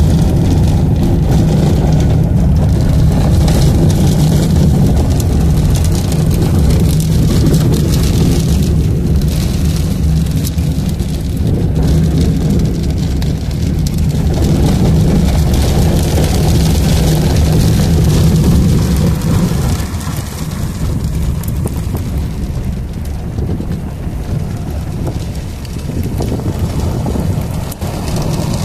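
Inside a car driving in rain: a steady low engine and road drone under rain hitting the windshield and body. The low drone eases about two-thirds of the way through.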